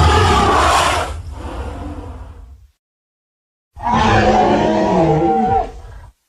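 Designed Triceratops creature sound effects: the end of one deep roar that fades out over its first couple of seconds, then after about a second of silence a second roar lasting about two seconds, dropping in pitch near its end.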